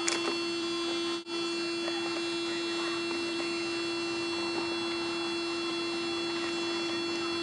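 A steady electrical hum, one strong low tone with fainter high whines above it, with a sharp click at the very start and a brief dropout about a second in.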